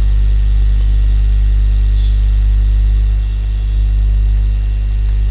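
Loud, steady electrical mains hum with a row of fainter overtones and a faint hiss above it, running under the recording with no other sound.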